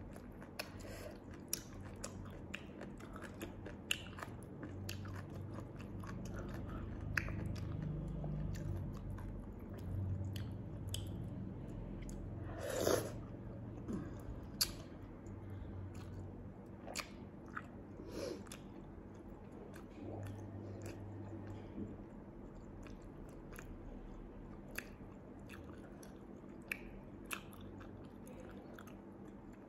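Close-miked chewing and biting of sea-snail meat in chilli sauce, with many short wet mouth clicks and smacks. One longer, louder mouth sound comes about halfway through.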